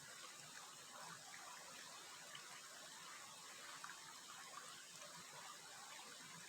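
Faint running water, a soft steady trickle with small flickers of splashing and no distinct events.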